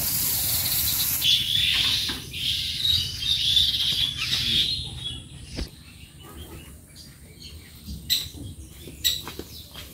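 Dry straw rustling and crackling as it is pulled from a haystack and gathered up by hand, with birds chirping behind it; the rustle dies down about halfway through, leaving a few sharp clicks near the end.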